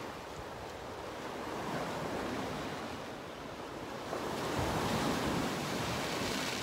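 Ocean surf breaking and washing over shoreline rocks, with wind on the microphone; the wash swells louder about four seconds in.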